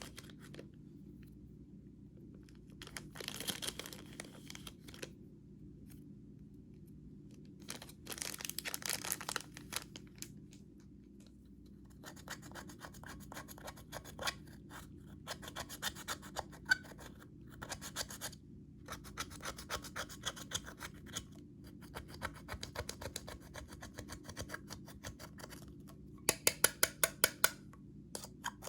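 Slime and makeup worked by hand: separate scraping and rubbing strokes, then from about twelve seconds in a long run of small crackling clicks, with a quick row of louder sharp clicks near the end.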